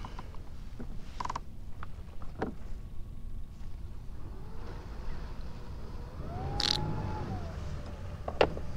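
Light clicks and ticks of fishing tackle being handled while a soft jerk bait is rigged and scented, with a drawn-out creak that rises, holds and drops about six seconds in, over a low steady rumble.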